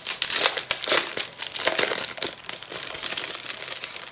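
Clear plastic packaging crinkling and crackling as hands unfold it around a strip of small bags of diamond-painting drills; loudest in the first second, then lighter rustling.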